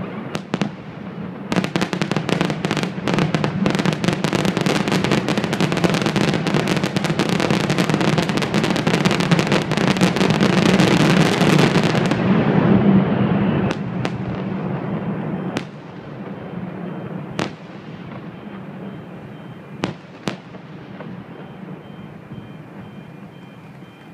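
Fireworks display finale: a dense, rapid barrage of bangs and crackles runs for about ten seconds and stops abruptly, followed by a handful of single bangs a couple of seconds apart as the show dies away.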